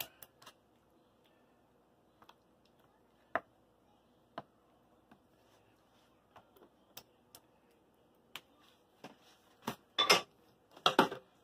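Scattered light clicks and taps of a wooden spoon spreading sauce in an aluminium foil pan, with a few louder knocks close together near the end.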